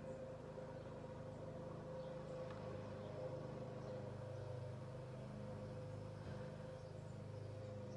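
Quiet room tone: a steady low hum with a faint steady tone above it.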